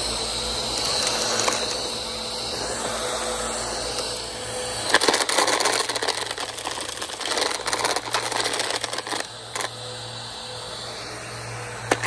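Bissell PowerForce upright vacuum cleaner running steadily as it is pushed over dry grass and bare dirt. From about five seconds in to about nine and a half, a dense rattling of dirt and small stones clattering up through the machine.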